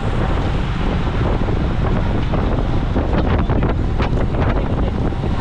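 Heavy wind buffeting the microphone of a camera on a moving road bike: a steady, loud rush of air. A short run of ticks comes about three seconds in.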